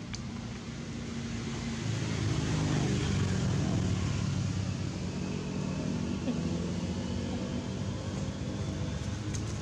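A motor vehicle's engine running steadily, getting louder about two seconds in and then holding.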